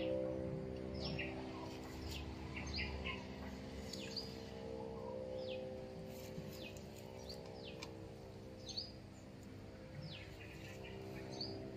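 Birds chirping: short, quick falling calls repeating irregularly every second or so, over a steady low hum.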